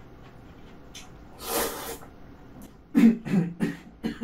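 Jjapaghetti noodles slurped into the mouth with chopsticks, one long loud slurp about a second and a half in. Several quick, loud chewing and smacking mouth sounds follow near the end.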